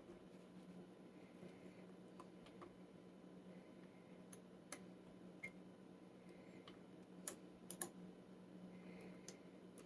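Faint, scattered clicks of a lock pick and tension wrench working the pins of a Schlage pin-tumbler lock cylinder, with a few sharper clicks about seven to eight seconds in, over a faint steady hum.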